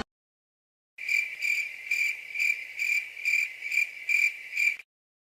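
Crickets chirping, the stock gag sound effect for an awkward silence: evenly spaced chirps about two and a half times a second. They start about a second in and stop shortly before the end.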